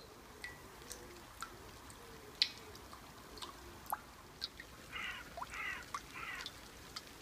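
Rainwater dripping from a gutter downpipe into a full water butt, single drops plinking onto the water surface at irregular intervals. About five seconds in, a bird calls three times in quick succession.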